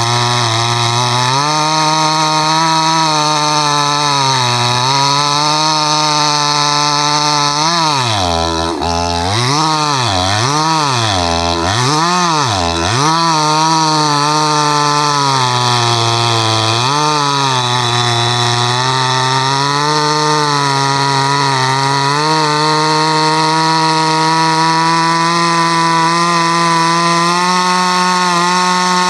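62cc Chinese chainsaw running at high revs while cutting through a large piece of timber, its engine speed sagging under load several times, dipping hard and repeatedly around the middle, then holding steady near the end.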